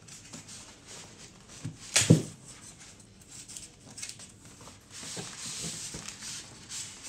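Foam packing and cardboard rustling and scraping as a boxed printer in foam end caps is pulled up out of its carton, with one sharp knock about two seconds in.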